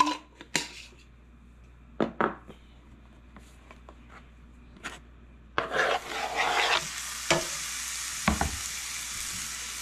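A few light knocks of a utensil against a pan. About halfway through, a frying pan starts sizzling suddenly and loudly as food goes into the hot oil, then settles into a steady sizzle with a couple of sharper knocks.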